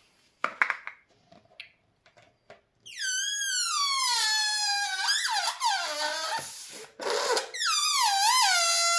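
Rubber balloon deflating, air squealing out through its stretched neck in a high, wavering tone that slides down in pitch. It breaks for a brief noisy sputter about seven seconds in, then squeals again. A few short squeaks and taps come in the first three seconds.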